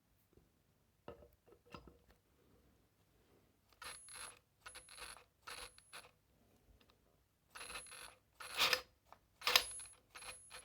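Parkside Me PMBSA 4 A1 cordless drill run in a string of short bursts, each with a thin high whine, after a few faint clicks. This is typical of a drill stopping and starting while it struggles to drive a screw that is too large for it.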